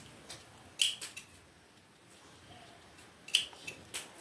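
Scissors snipping paper: a few short, sharp snips, one about a second in and two close together near the end, as small cuts are made into the sides of a paper piece.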